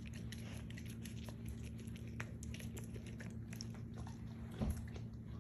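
Dog chewing soft marshmallow treats: quick wet smacks and clicks of the jaws, over a steady low hum. A single louder thump comes near the end.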